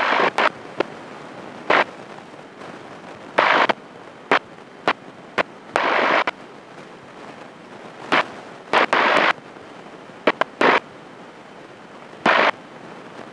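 Irregular short bursts of crackling noise in the cockpit headset intercom: some sharp clicks, others lasting up to about half a second, over a faint steady background.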